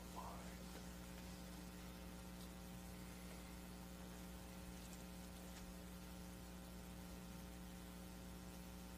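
Faint, steady electrical mains hum: a low buzz with a stack of evenly spaced overtones that stays constant throughout.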